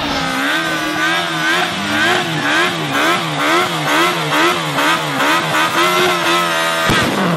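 Stunt motorcycle engine revving up and down about twice a second while the rider holds a smoking rear-tyre burnout. The revving cuts off abruptly near the end.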